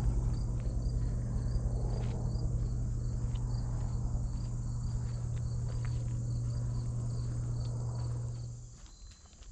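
Crickets chirping in a regular rhythm, a few chirps a second, over a steady low hum that stops shortly before the end.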